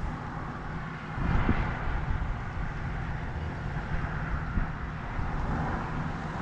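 Diesel engine of a Caterpillar 930 wheel loader running steadily, a low even rumble that rises slightly about a second in.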